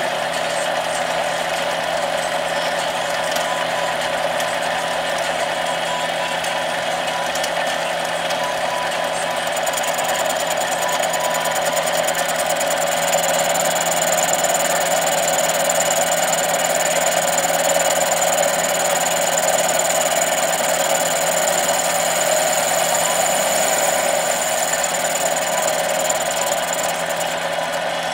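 Small metal lathe running steadily while a tool turns a piston, motor and gear noise with a steady hum. A high steady whine comes in about ten seconds in.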